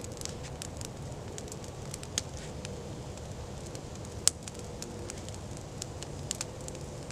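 Freshly lit teepee campfire of birch bark, fatwood and small sticks crackling as it takes hold, with scattered sharp pops, one standing out about four seconds in.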